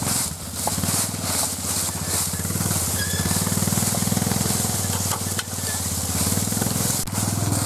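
ATV (four-wheeler) engine running steadily at low speed, with the hissing rustle of a plastic sled dragging over dry fallen leaves.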